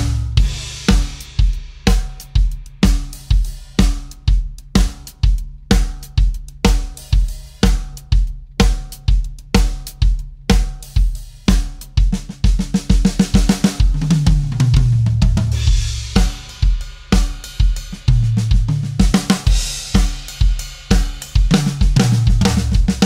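Sonor Force 3001 drum kit played in a steady groove, with snare and bass drum strokes about two a second under hi-hat and cymbals. Three tom fills run down the toms from high to low.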